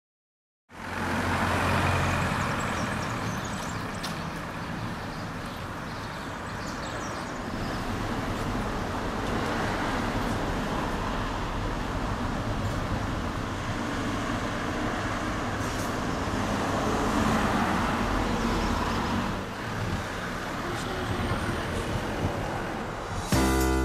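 Road traffic noise with a heavy vehicle's engine running steadily, starting abruptly under a second in.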